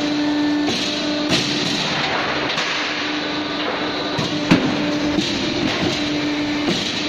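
Tile-profile roll-forming machine running as coloured steel roofing sheet feeds through its rollers: a steady hum that breaks off now and then under a dense clatter, with a sharp knock about four and a half seconds in.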